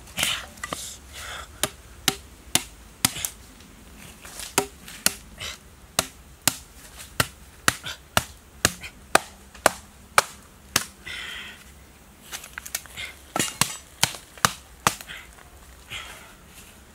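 Sharp knocks, about two a second, of a green bamboo stake being pounded into the ground from overhead, with a short break about two-thirds of the way through. Rustling comes in between the blows.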